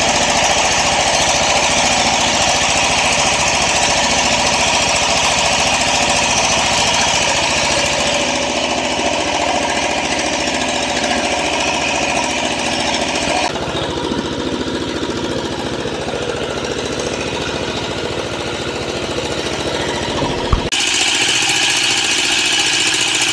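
Fishing boat's engine running steadily at sea, with a brief click near the end.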